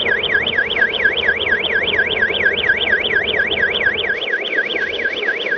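Electronic warble siren of the RC emergency vehicles, its pitch sweeping fast up and down about three times a second, over a steady low hum.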